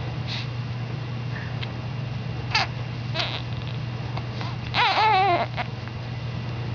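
A baby with the hiccups: two short sharp hiccups about half a second apart, then a brief wavering, whimpering cry.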